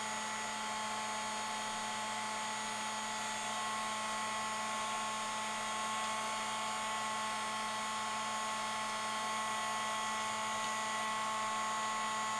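Embossing heat tool running steadily on low heat: the even whine and hum of its small fan motor over a rush of blown air. A high tone in the whine grows a little stronger about three and a half seconds in.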